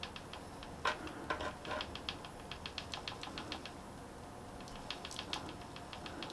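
Homemade high-voltage static grass applicator running with its button held: a faint high whine under irregular crackling ticks, several a second, as grass fibres are shaken out through its charged sieve.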